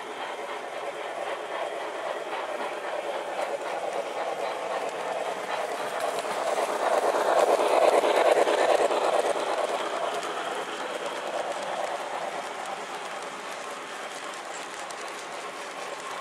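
Model Santa Fe 4-8-4 steam passenger train rolling by on its track, with a steady rumble and rapid clicking of wheels on rails. It grows louder to a peak about eight seconds in as the cars pass close, then slowly fades.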